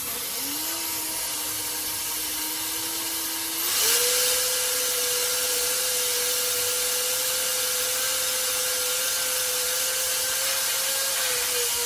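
Brushless-motor hair dryer running: a rush of air with a steady motor whine. About four seconds in, the whine steps up in pitch and the dryer gets louder as it moves to a higher speed.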